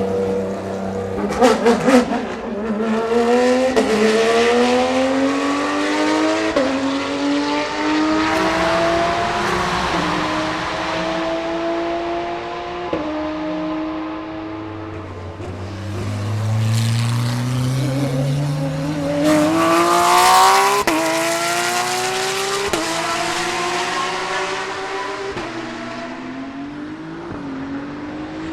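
Porsche 992 GT3 R race car's flat-six engine at full throttle, its pitch climbing and dropping back with quick upshifts every couple of seconds, in two runs of acceleration. A few sharp cracks come about a second and a half in.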